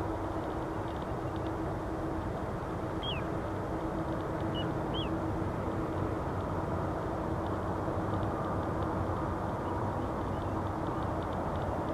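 Distant Airbus A321-200 airliner on final approach with gear down: a steady low jet-engine rumble and hum, slowly growing louder as it nears.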